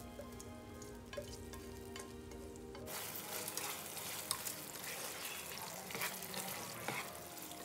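Soft background music for about the first three seconds. Then chicken in a coated pan sizzles and crackles in hot oil while a spatula stirs it, with scrapes and taps against the pan.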